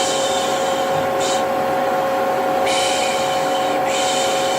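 A vacuum cleaner runs steadily with a constant motor whine. Over it come repeated soothing "shh" shushing hisses: a short one about a second in, a longer one about three seconds in, and another just after.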